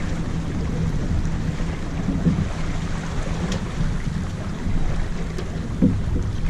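Wind buffeting the microphone aboard a sailboat under way, a steady low rumble, with water washing along the hull.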